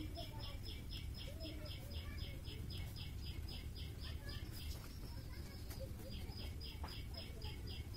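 Rapid, evenly repeated high chirps, about four a second, with a break of about a second near the middle, over a faint low hum.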